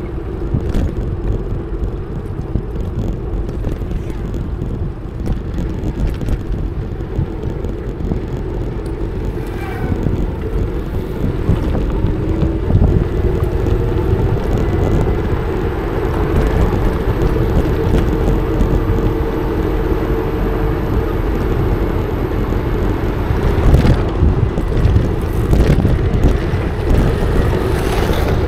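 Wind rumbling on an action camera's microphone and road noise while riding a VanMoof S3 electric bike. A steady hum runs under it, wavering in pitch through the middle stretch, and the whole gets louder about halfway through.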